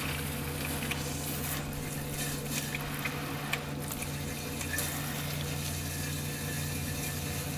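BougeRV portable propane water heater running steadily: its 12-volt pump hums as it draws water, the propane burner is lit, and water runs through the unit and out of the hand-held shower head.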